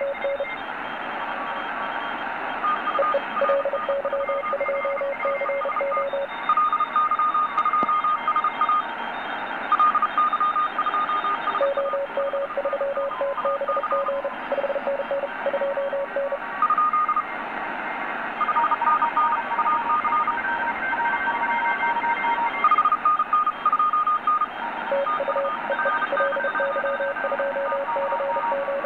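Several fast Morse code (CW) signals received on a Tecsun PL-600 world band radio in SSB mode at 3522 kHz, each keyed as quick beeps at its own pitch, overlapping over a steady hiss of band noise.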